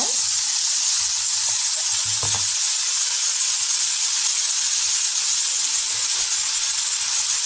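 Diced bell peppers, corn and zucchini sizzling steadily in hot olive oil in a sauté pan.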